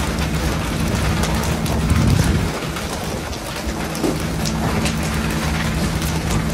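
Constant rushing hiss of water spray and sea along a pole-and-line tuna boat over the steady hum of the boat's engine, which dips about the middle. Scattered sharp slaps come as skipjack tuna are flung onto the deck.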